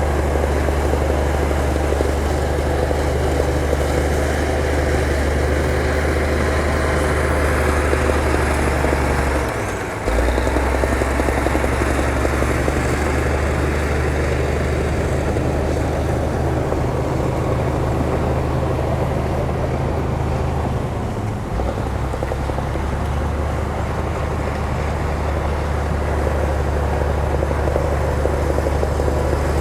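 Heavy diesel earthmoving machine engine running steadily under load, with a low drone and brief dips in pitch and level about ten seconds in and again about twenty-one seconds in.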